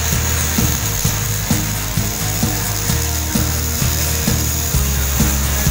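Background music with a steady beat about twice a second and a stepping bass line, over a steady high hiss.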